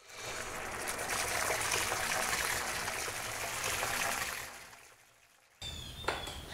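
Splashing, pouring-liquid sound effect of an animated logo sting: a rush of water noise that swells in and then fades away about four and a half seconds in.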